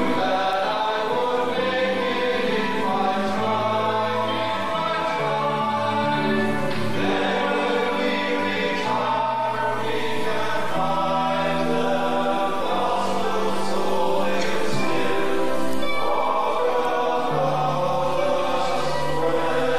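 Choir of cast voices singing a slow passage in long held notes that change in steps, live on stage.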